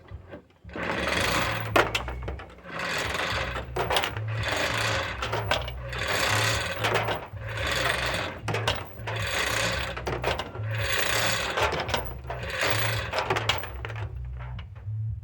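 A hoist lifting a pickup truck cab on straps, working in repeated bursts about a second long with short pauses between, over a steady low pulsing hum.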